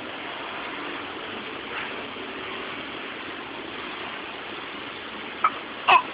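Steady background noise, then two short, sharp coughs from a six-month-old baby near the end, the second louder than the first.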